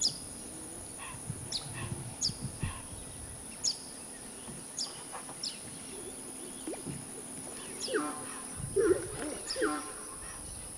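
Outdoor tropical ambience with birds: short, sharp, high chirps that sweep downward, spaced about a second apart, over a steady high-pitched buzz. Around eight seconds in, a cluster of lower, louder calls comes in and lasts a couple of seconds.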